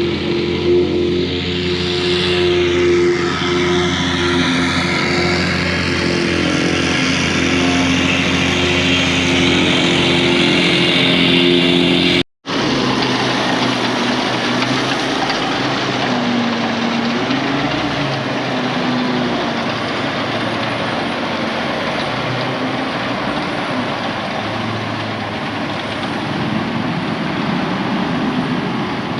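Heavy equipment engine running steadily while rock is being spread and packed, with a sudden dropout about twelve seconds in before a similar steady running sound resumes.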